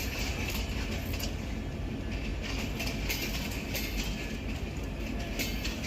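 A broad-gauge passenger train running by, with a steady low rumble and repeated sharp clicks of wheels over the rails.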